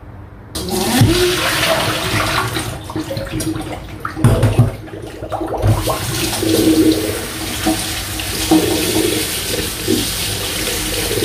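Kitchen tap running water onto vegetables being rinsed in a stainless wire basket in the sink, starting about half a second in. A few dull knocks from the handling come about four to six seconds in.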